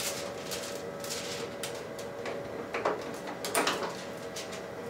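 Retransfer film being lifted out of a Zebra ZXP Series 8 card printer: plastic film spools knocking and scraping against the printer's film holder. Two louder scrapes come about three and three and a half seconds in, over a steady faint hum.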